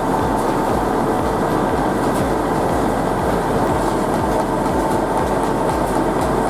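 Large diesel-powered wood chipper running under load, a steady mechanical din with a regular low pulsing beneath it.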